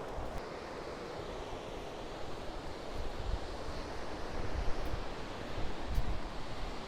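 Steady wash of Baltic Sea waves on the shore, with wind gusting over the microphone.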